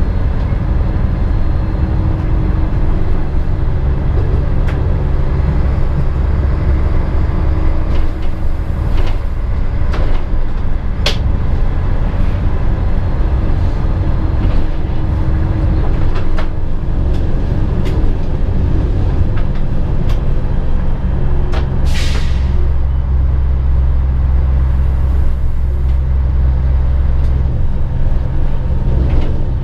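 BR 650 (Stadler Regio-Shuttle) diesel railcar heard from its driver's cab running through a station's track layout: a steady engine drone under wheel-on-rail rumble, the engine note strengthening twice as power is applied. Sharp clicks as the wheels cross points, and a short falling hiss about three-quarters of the way through.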